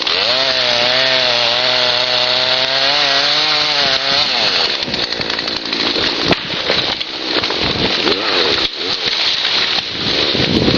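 Chainsaw running: a steady, slightly wavering engine note for about the first four seconds, then a rougher, uneven sound to the end.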